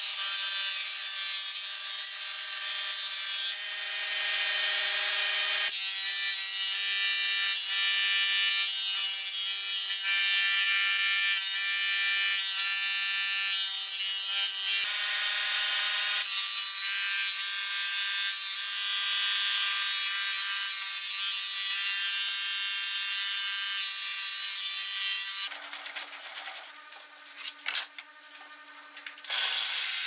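Thickness planer running and taking boards through, a steady loud motor whine over the rasping of the cutterhead on wood. About four seconds before the end the cutting stops, leaving a quieter low machine hum with a few clicks.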